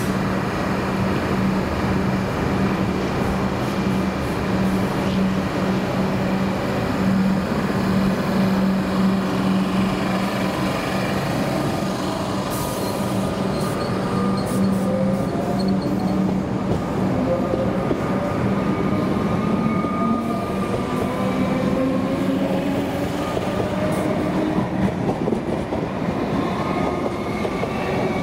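Comeng electric multiple unit pulling out of the platform. A steady hum is joined about halfway through by several motor whines that climb in pitch as the train gathers speed, over rumbling wheels and rail noise with a few clicks.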